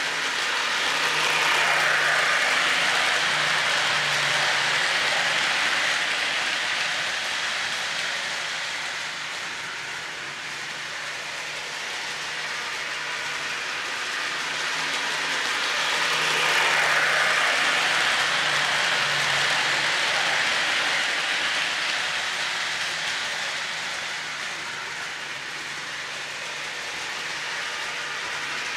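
O-gauge model freight train led by a Lionel EMD SD9 diesel locomotive running on three-rail track: a steady rumble of wheels and motor with a faint low hum. It swells twice, about fifteen seconds apart, as the train comes round the loop.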